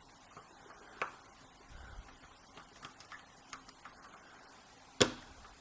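Scattered small metallic clicks of a tubular pick working the pins of a tubular cam lock, with one sharp, louder click about five seconds in.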